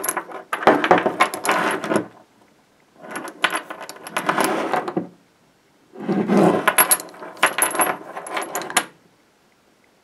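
Antique Mühlenfeld wrought-iron leg irons and their rusty connecting chain clinking and rattling as they are handled, in three bursts of a couple of seconds each.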